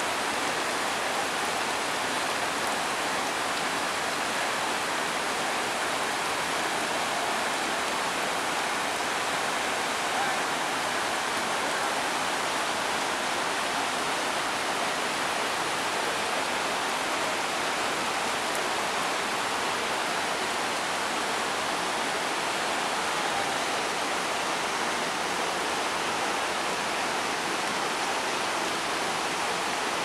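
Desert waterfall running full with winter storm runoff: a steady, unbroken rush of falling water.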